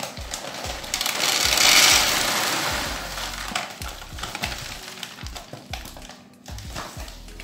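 Dry dehulled maize grains (muthokoi) pouring from a plastic bag into a plastic tub: a rushing rattle of kernels, loudest a second or two in, then thinning to scattered clicks as the last grains fall.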